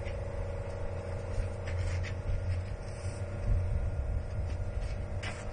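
Steady mechanical hum with a low rumble underneath and a few faint clicks.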